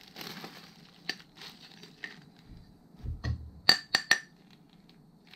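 The lightweight aluminium handlebar of a child's bike seat being tapped with a steel Allen key. There are a few light metallic clinks, and the loudest three come in quick succession about four seconds in, just after a dull knock. The tapping is a check of whether the bar is metal, and it rings as aluminium.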